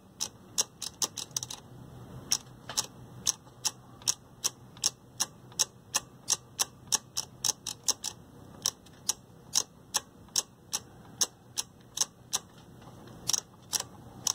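Speaker selector switch of a Yamaha R-2000 receiver being clicked repeatedly through its detent positions, about two to three sharp clicks a second with a quick cluster near the end. The switch is being worked back and forth to spread freshly sprayed DeoxIT contact cleaner over its contacts.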